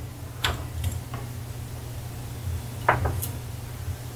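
A few light knocks and clicks of things being picked up and handled on a stainless steel workbench, the loudest a little under three seconds in, over a steady low hum.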